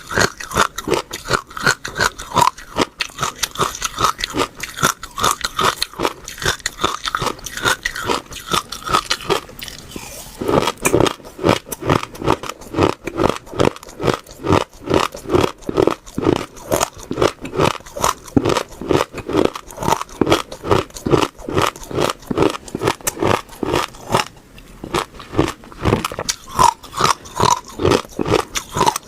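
Close-up chewing of crunchy food, steady crunches at about three a second. About a third of the way in the crunches turn deeper and duller.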